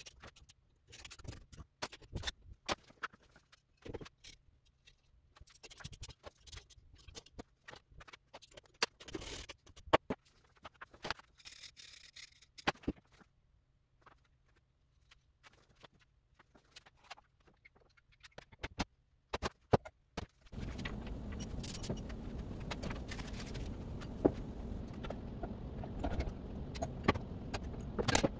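Scattered clinks, taps and scrapes of hand tools and metal motorcycle parts being handled and fitted during assembly. About two-thirds of the way through, a steady background noise comes in under the clinking.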